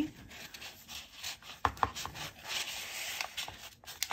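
Paper rustling and sliding as a card is tucked into a paper envelope pocket in a junk journal, with two sharp ticks of card against paper a little under two seconds in.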